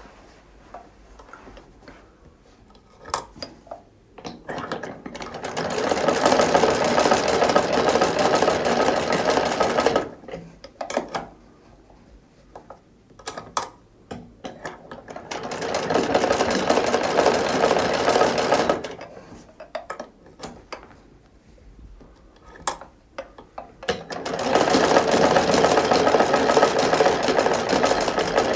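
Hand-operated sewing machine cranked in three short runs of rapid, steady mechanical stitching: one starting about five seconds in, one in the middle and one near the end. Sharp clicks and knocks of handling fall in the gaps between runs.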